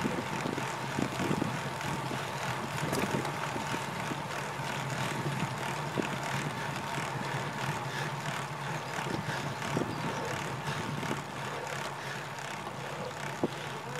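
Wind rushing over the microphone of a handlebar-mounted camera on a road bike being ridden, with tyre and road noise from the asphalt. A few short knocks from bumps in the road, and a thin steady whine runs underneath.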